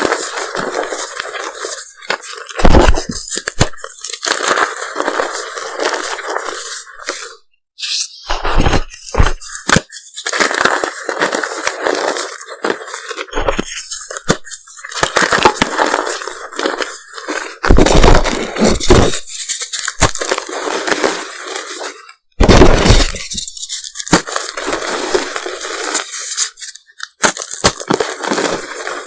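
Reformed gym chalk pieces shaped like M&M candies being crushed and crumbled, a steady run of crackling and crunching broken by short pauses, with a few louder crunches.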